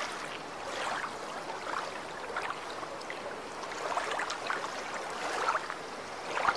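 Flowing, lapping water: a steady rush with scattered small splashes.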